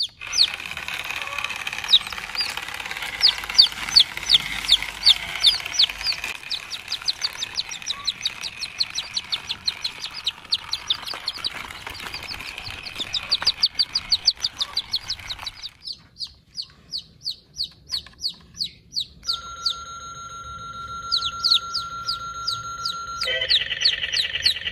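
Baby chicks peeping over and over, short high calls falling in pitch, several a second. Near the end steady electronic tones, then a buzzing electronic tone, come from a toy petrol pump.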